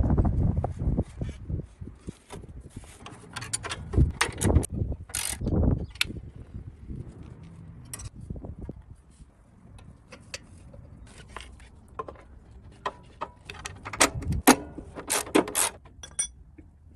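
Irregular metallic clicks, knocks and ratchet-like rattles of hand tools and metal parts being worked on, with a few louder knocks in clusters.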